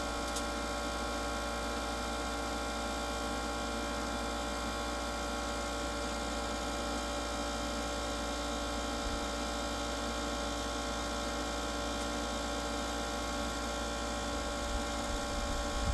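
Traeger Select Elite pellet grill's combustion fan running: a steady electric hum with several fixed tones.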